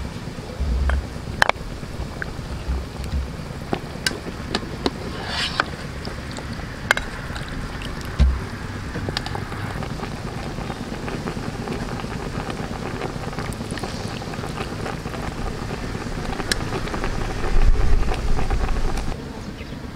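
A metal ladle clinks now and then against a stockpot and a bowl as stew is served. Low rumbles of wind on the microphone come and go, loudest near the end.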